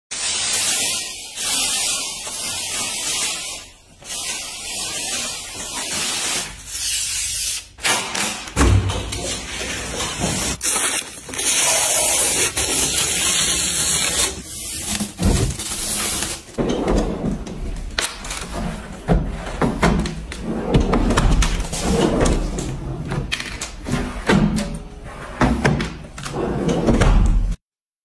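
Clear plastic protective film crinkling and rustling as it is pulled off a new Midea refrigerator, mixed with knocks and thumps from the fridge's doors and drawers being handled.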